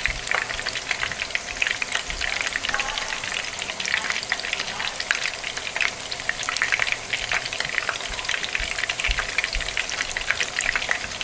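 Chicken flautas (rolled tortillas) shallow-frying in hot oil in a skillet: a steady sizzle with many small crackling pops, from the moisture in the tortillas and chicken hitting the oil.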